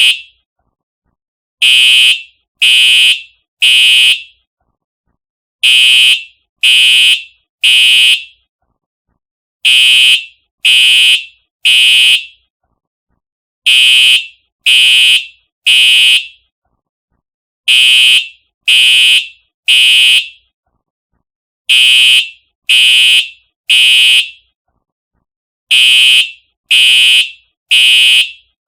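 Simplex TrueAlert fire alarm horn sounding loud, even blasts in the temporal-three pattern: three short blasts about a second apart, then a pause, repeating every four seconds. This is the standard fire evacuation signal.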